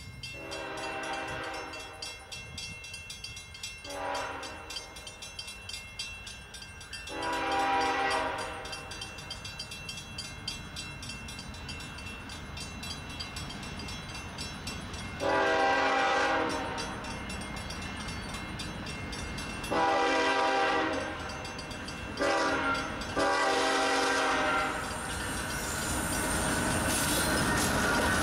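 Diesel locomotive horn on a GE ES44AC sounding for grade crossings as the train approaches: a long, a short and a long blast, then after a pause the standard long-long-short-long crossing signal. A crossing bell rings steadily underneath, and the rumble of the locomotive and train grows louder near the end as it arrives.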